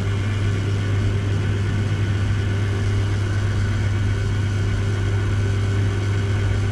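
Steady low hum of running machinery, one constant pitch that holds evenly with no change in level.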